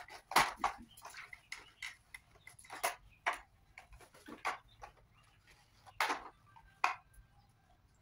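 Irregular clicks and knocks of hard plastic stick-vacuum parts (motor unit, dust cup, filter) being handled and taken apart. The sharpest knocks come about half a second in, near three seconds in, and around six and seven seconds in.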